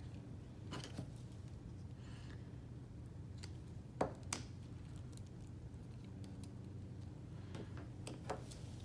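Faint handling sounds: small clicks and taps of hands pressing succulents onto a ribbon cuff on a plastic water bottle and moving over paper, over a steady low hum. Two sharper knocks come close together about four seconds in, and a lighter one near the end.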